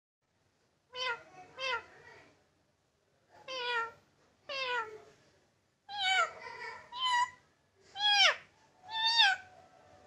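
Indian ringneck parakeet mimicking a cat's meow: about eight short meows, some in quick pairs, mostly falling in pitch, starting about a second in.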